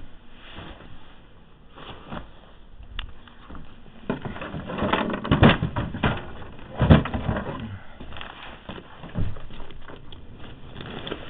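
Handling noise: rustling and knocks as the camera is carried and moved about, with louder thumps about five and seven seconds in.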